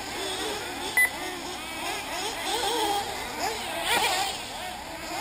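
Several 1/8-scale nitro buggy engines whining as they rev up and down around the track, their pitches rising and falling over one another. A short, sharp electronic beep sounds about a second in.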